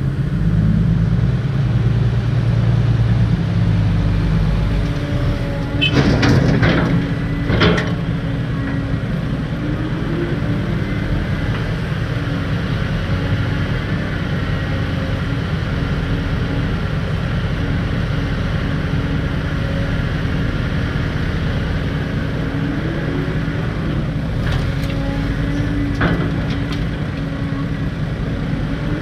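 Heavy diesel engine running under load with a steady low rumble, loudest in the first four seconds. A few sharp knocks come about six and seven and a half seconds in, and again near the end.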